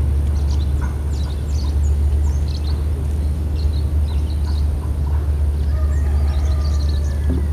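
Outdoor ambience: a steady low rumble under small birds chirping on and off.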